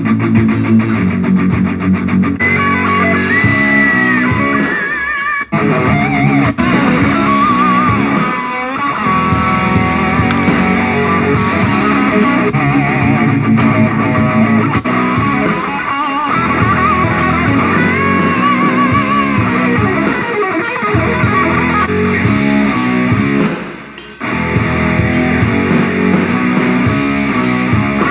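Instrumental music with electric guitar and bass, played loud through an LG LPD103 boombox, with a wavering lead guitar line over a steady accompaniment.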